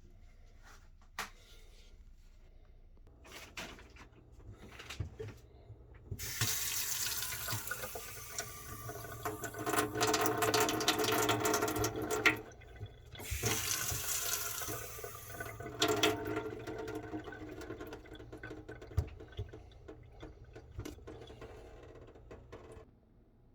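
Water running from a tap into a sink. It comes on about six seconds in after a few faint knocks, stops for about a second around twelve seconds, runs hard again, then flows more weakly until it stops near the end.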